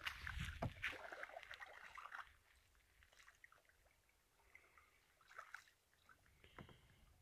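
Near silence, with faint splashes and trickles of water in the first two seconds, then only a few faint ticks.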